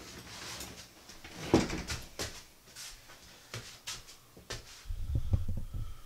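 Scattered light knocks and clicks, the loudest about a second and a half in, with a low rumble near the end.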